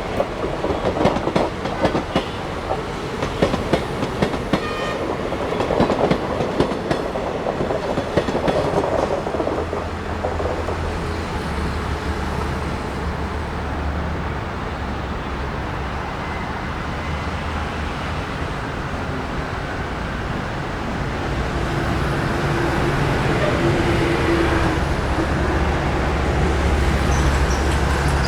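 Train coaches clattering rhythmically over rail joints. About ten seconds in, this gives way to the steady low drone of an ALCo diesel locomotive engine, which grows louder near the end.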